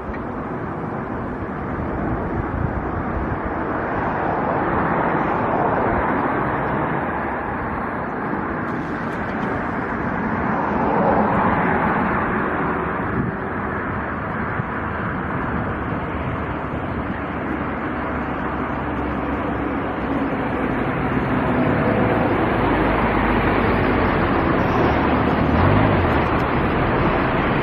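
Jet airliner engine noise, a steady rushing sound that swells and eases several times over the stretch, with a faint steady engine tone in the last few seconds.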